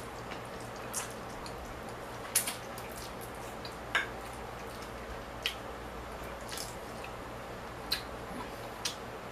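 Close-up eating sounds of slurping and chewing lo mein noodles: a handful of short, wet smacks spread out, over a steady low background hum.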